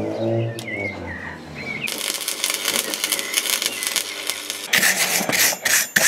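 Stick (MMA) arc welding with 3.2 mm rods, joining a thick-walled round steel bar to a 17 mm steel plate. After a low, wavering hum in the first two seconds, the arc crackles and sizzles steadily, growing louder and choppier in the last second or so.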